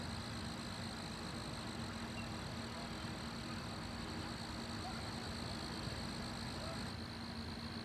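Steady outdoor background noise: an even hiss with a constant low hum and a steady high-pitched whine, and fainter higher tones that stop about seven seconds in. There are no distinct events.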